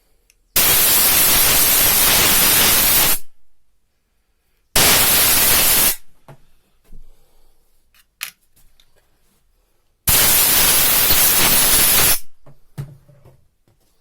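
Compressed air hissing from a blow gun onto common rail injector parts in three blasts. The first lasts about two and a half seconds, the second about a second, and the third about two seconds, each starting and stopping abruptly, with small tool clicks between them.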